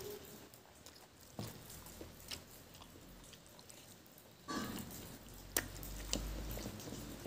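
Close-miked eating sounds: wet chewing and mouth clicks as fatty pork innards and rice are eaten by hand. A low rumble comes in about two-thirds of the way through.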